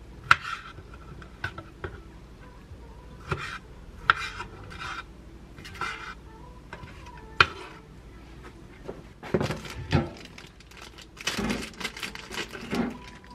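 Kitchen knife slicing fresh figs on a wooden cutting board, with a few sharp taps of the blade on the board spaced a second or more apart. Near the end there is denser rustling and clatter as food is handled.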